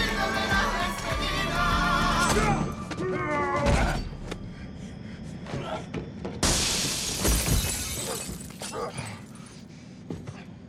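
A song with singing breaks off about four seconds in. About six and a half seconds in comes a loud crash of shattering glass, followed by a few thuds.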